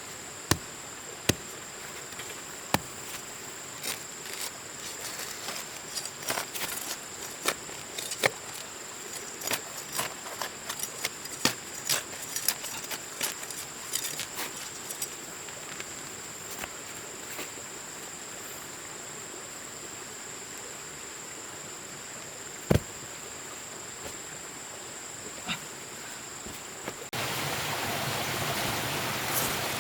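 Steady high-pitched insect drone with scattered sharp knocks and clicks. Near the end it cuts to the steady rush of flowing water.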